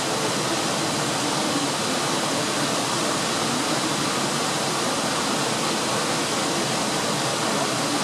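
Siklawa mountain waterfall rushing: a steady, unbroken noise of falling and cascading water.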